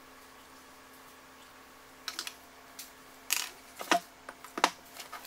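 Irregular sharp clicks and knocks of small metal parts handled on a wooden workbench: a steel vernier caliper is set down and a turbocharger's cartridge is moved about. They start about two seconds in, after a quiet stretch with a faint steady hum.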